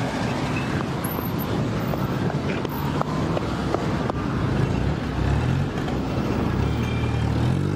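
Road traffic running close by: a low engine hum with wind on the microphone. Near the end a vehicle's engine rises in pitch as it speeds up.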